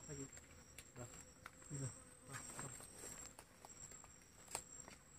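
Forest insects holding a steady high-pitched buzz, with scattered faint clicks and knocks and a few short low murmurs in the first half.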